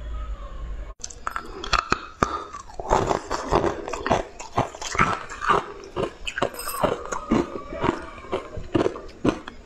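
Close-miked crunching and chewing of hard chunks of frozen colored ice, many sharp crunches in quick irregular succession, starting about a second in.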